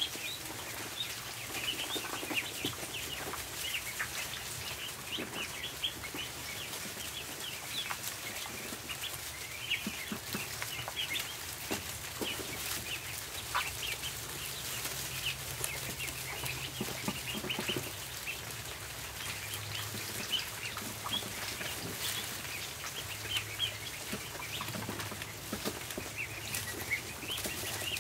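A brood of ducklings peeping without pause: many short, high chirps overlapping, with a faint low hum underneath.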